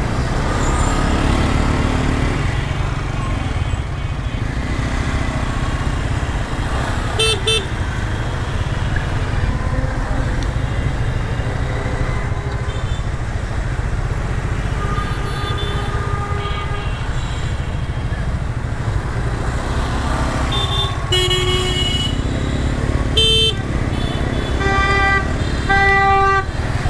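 Suzuki GSX-R motorcycle running at low speed in congested traffic, with a steady low rumble. Vehicle horns honk about 7 s in, then again and again in the last six seconds, including one longer blast and two close honks near the end.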